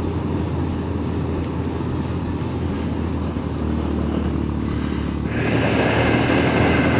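BMW GS adventure motorcycle being ridden: engine running under way, with wind rumble on the microphone. The engine note firms up about four seconds in and gets louder with a higher whine about five seconds in.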